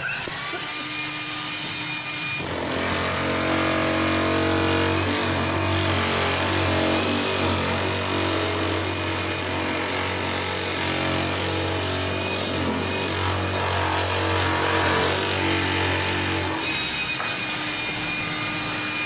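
Hilti TE 800-AVR electric demolition hammer running and chipping concrete, a steady loud hammering that starts about two and a half seconds in and cuts off near the end.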